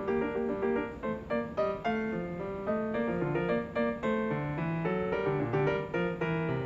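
Background piano music: a quick melody of short notes over a moving bass line.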